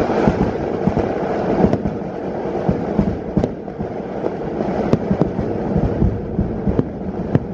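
Kerala temple fireworks (vedikettu) going off in a dense, unbroken barrage of bangs, with a few sharper cracks standing out above the rapid rumble of blasts.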